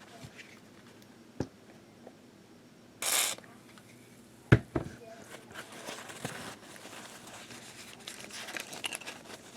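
Small parts being handled: a brief rasping tear about three seconds in, then two sharp clicks a moment apart and light rustling.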